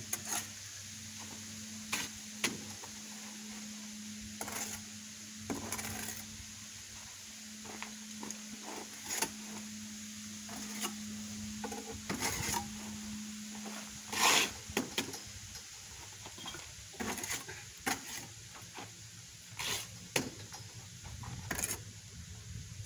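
Stone veneer being set by hand: irregular clinks, taps and scrapes of stone and a tool against stone and mortar, the loudest knock about two-thirds of the way through. A steady low hum runs underneath.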